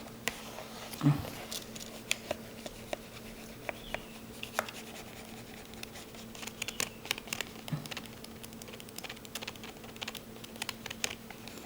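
Scattered light clicks and taps of a plastic screen protector and credit card being worked against a laptop screen, over a faint steady hum.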